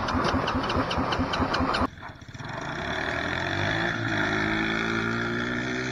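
Small go-kart engine running with a rapid even chug of about eight beats a second. After a cut about two seconds in, the engine revs up, rising in pitch, and holds steady as the kart drives.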